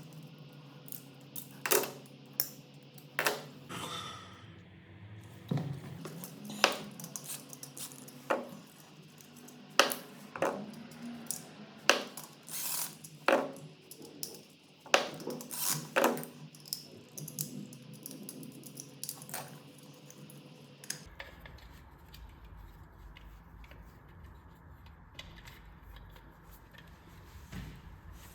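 Irregular sharp clicks and light metallic clinks, some ringing briefly, as of small hard parts and tools being handled. They stop about three quarters of the way through, leaving a low background rumble.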